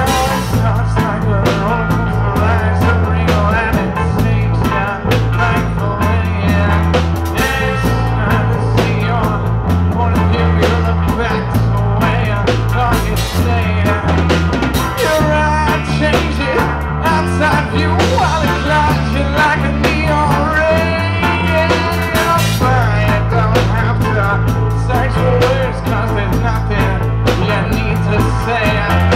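Live reggae band playing: electric guitar, keyboard, bass guitar and drum kit under a singer's voice, with a steady, repeating bass line.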